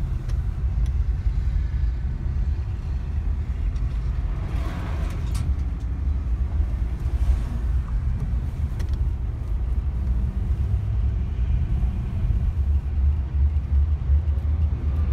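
A car driving, heard from inside the cabin: steady low road and engine rumble, with a brief swell of noise about five seconds in.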